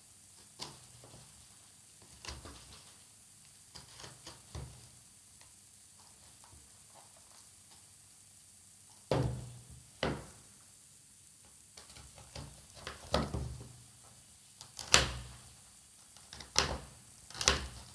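Hands working at sealed packaging and trying to get it open: scattered clicks and knocks, with two sharper knocks about nine and ten seconds in and a quicker run of them near the end.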